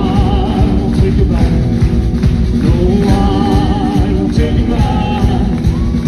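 Live country band playing, with electric guitar, bass and drums under a voice singing long held notes with vibrato.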